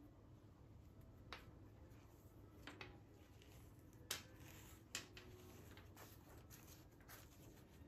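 Quiet handling of a cloth drawstring pouch holding a Yixing clay teapot as gloved hands untie and open it: faint rustling with a handful of small sharp clicks, the two loudest about four and five seconds in.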